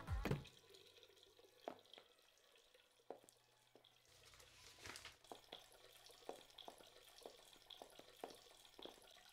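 Near silence, with faint, sharp, irregular ticks from about halfway on. Music cuts off just at the start.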